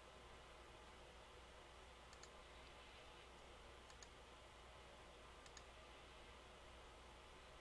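Near silence with a low room hum, broken by three faint, short double clicks about a second and a half apart.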